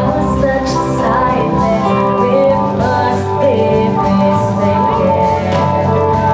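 Live rock band playing a song: a woman singing lead over electric bass and a drum kit, loud and steady.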